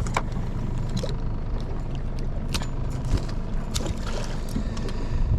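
Steady low rumble aboard a small fishing boat, with scattered light clicks and taps over it.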